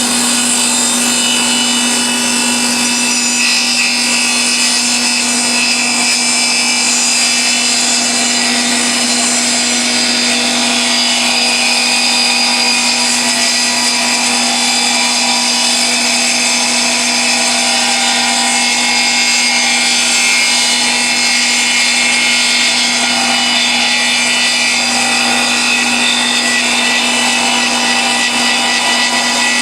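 Log-home log lathe running steadily, its saw cutting a kerf along a log, with a constant electric hum beneath the cutting noise.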